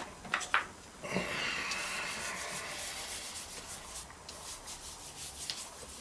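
Pencil eraser rubbing back and forth on Bristol board, lifting graphite out of the drawing: a steady scratchy rubbing that starts about a second in and stops near the end, after a few light clicks at the start.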